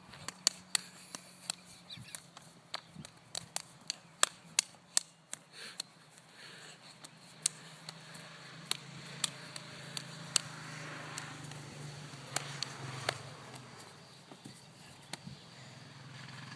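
Feet tapping and stomping on a hard floor while dancing: irregular sharp taps, close together in the first six seconds and sparser after, over a faint low hum.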